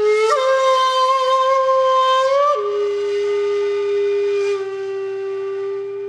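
A wind instrument playing long held notes, rich in overtones: the first note steps up slightly just after it starts, then drops to a lower note about two and a half seconds in and holds steady.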